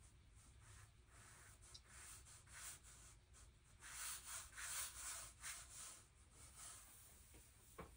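A watercolour brush making a faint run of quick swishing strokes, loudest about halfway through.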